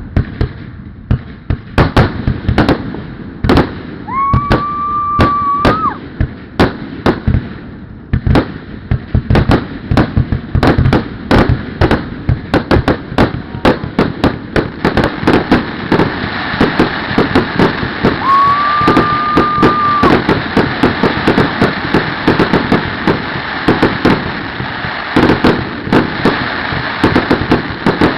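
Fireworks display: many rapid, overlapping bangs and crackles, growing denser about halfway through. A steady high whistle sounds twice, each lasting about two seconds.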